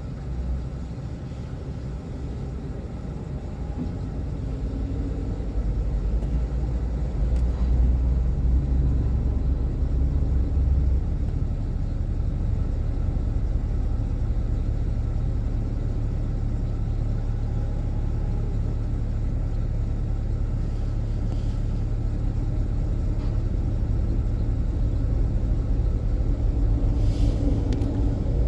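Excavator's diesel engine running with a steady low rumble that gets louder a few seconds in.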